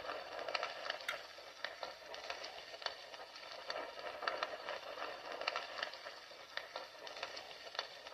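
Fire crackling: many sharp, irregular pops and snaps over a steady hiss.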